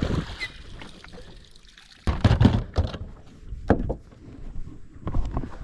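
Water splashing and sloshing against a boat in irregular surges, the loudest starting suddenly about two seconds in.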